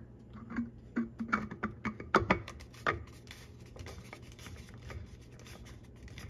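Plastic soap-dispenser bottle being screwed by hand onto the dispenser's threaded plastic shank: a run of small clicks and scrapes of plastic on plastic over the first three seconds, then softer rubbing.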